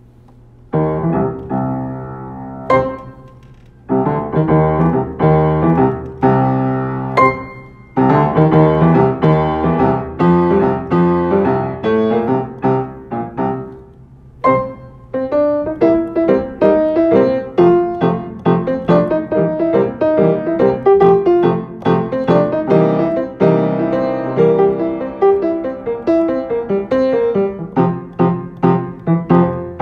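Solo piano playing a prelude: slow, ringing chords for the first half, then a steadier stream of quicker notes and chords.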